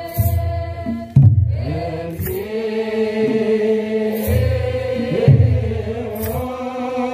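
Ethiopian Orthodox wereb: a group chanting slow held notes in unison, with tsenatsel sistrums shaken in a short rattle about every two seconds.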